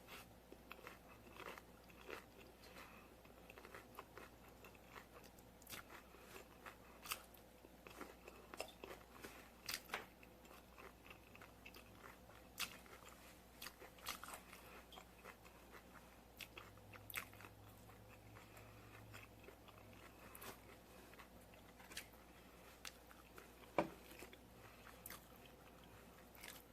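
Close-up eating sounds: crunchy hard-shell tacos being bitten and chewed, a scatter of sharp crackling crunches over quiet chewing, with one louder crunch near the end.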